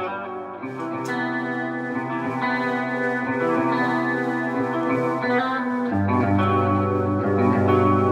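Music: electric guitar through effects playing sustained, ringing chords; a deep bass note comes in about six seconds in as the chord changes.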